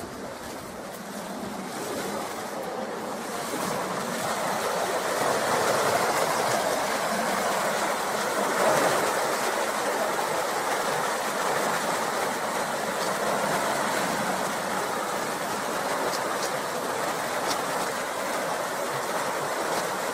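Water rushing out through the opened sluices in the lower gates of a canal lock as the lock chamber drains. The steady rush of churning water grows louder over the first five or six seconds, then holds.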